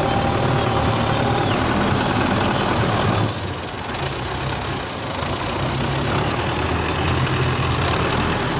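Belarus tractor's diesel engine running while the tractor pushes soil with its front blade; the engine note drops about three seconds in and picks up again a couple of seconds later.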